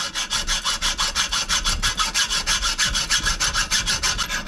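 Hacksaw cutting through one wing of a stainless steel wing nut held in a bench vise, in quick, even back-and-forth strokes of about four a second.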